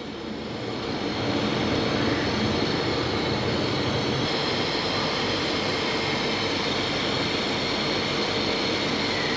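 Mash (urad) dal fritters sizzling in hot oil in a frying pan: a steady, crackling hiss that swells over the first second or so and then holds level.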